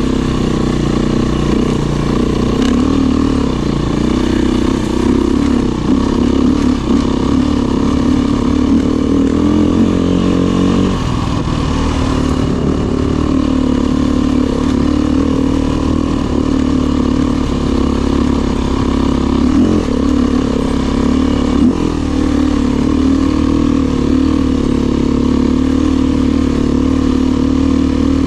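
KTM EXC enduro dirt bike engine running steadily as it rides along a snowy trail, its pitch rising and falling a little with the throttle.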